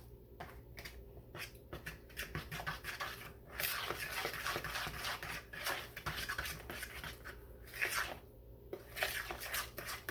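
Cornbread batter being stirred in a mixing bowl: a spoon scraping and clicking against the bowl in quick repeated strokes, with wet sloshing of the thin batter.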